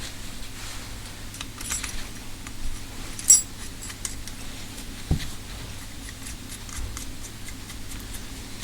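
Small metal carburettor parts clinking and clicking as they are handled and fitted, with one sharp click about three seconds in and a short knock about five seconds in, over a steady low hum.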